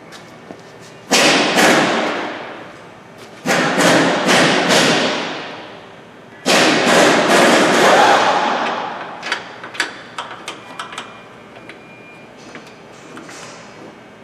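Loud clattering knocks of metal tools and parts in three bouts of about two seconds each, each fading out, followed by a scatter of lighter clicks and taps.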